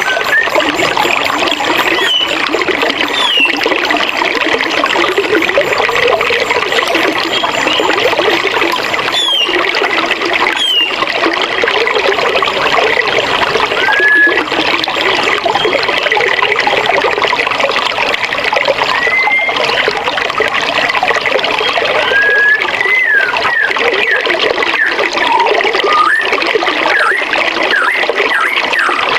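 Water of a forest river running steadily, with short whistled bird chirps now and then over it.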